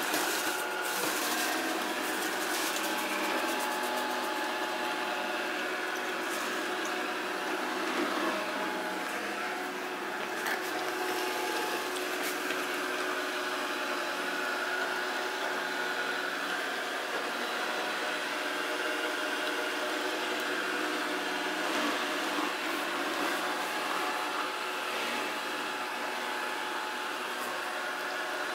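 Samsung SR8751 robot vacuum cleaner running, a steady motor whir with several steady tones through it, and a few light clicks in the first few seconds.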